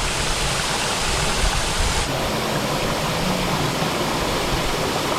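Steady rushing of fast-flowing stream water, a loud, even hiss.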